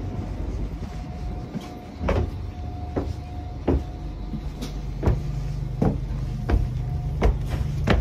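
Footsteps thudding on the boarding step, vestibule floor and stairs of a TGV double-deck coach, about one step every 0.7 seconds from about two seconds in. A steady low hum sets in about halfway through as the walker gets inside the coach.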